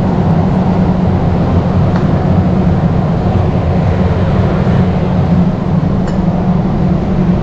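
Steady low rumble of a big warehouse store's background noise, with no distinct event standing out.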